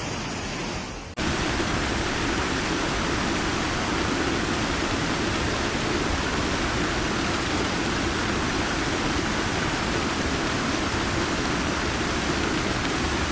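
Steady rushing of fast-moving floodwater, an even roar with no breaks. About a second in it cuts to a louder, fuller rush.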